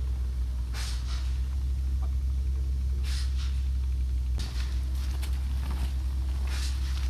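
A steady low rumble throughout. Over it come several brief rustling swishes, about four, as the liferaft's rubberised fabric is handled and pulled open.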